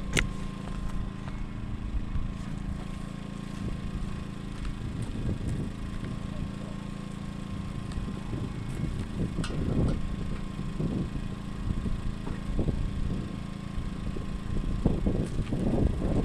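Small portable generator engine running steadily, with irregular bursts of noise from work close by, the strongest about ten seconds in and near the end.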